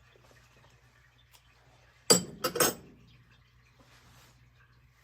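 Metal clinking on a stainless steel Turkish coffee pot (cezve), likely a spoon knocking against it: three quick, ringing clinks close together about two seconds in.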